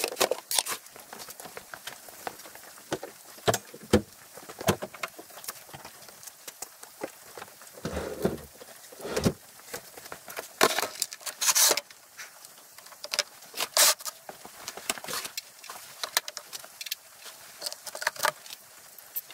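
Scattered clicks, knocks and rustles of a plastic oil drain container, cardboard and tools being handled, with two heavier thumps about eight and nine seconds in.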